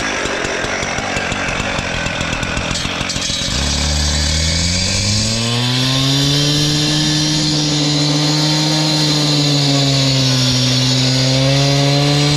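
Gas-powered concrete cut-off saw running rough and unevenly, then revving up about three and a half seconds in and holding a steady, higher engine pitch at full throttle.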